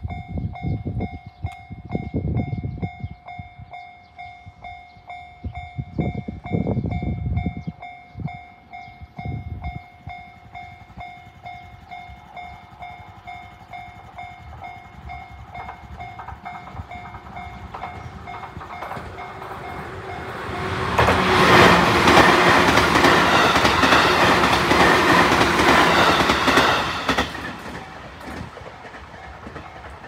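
Japanese level crossing alarm, the JR standard electronic tone, ringing steadily with a fast repeating ding while the barriers are down. A train passes over the crossing from about 21 to 27 seconds in, a loud rush with wheels clattering on the rails, which swells and then fades.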